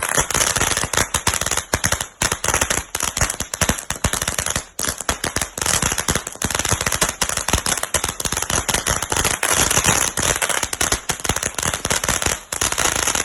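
Firecrackers going off in a rapid, unbroken run of sharp bangs, many a second, like a long string of crackers.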